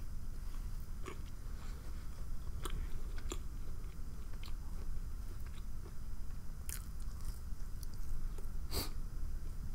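A person chewing and biting food close to the microphone, with scattered short mouth clicks, the loudest a little before the end.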